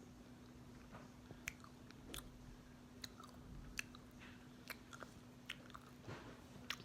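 A person chewing a gummy candy: faint, scattered wet mouth clicks and smacks, about one or two a second.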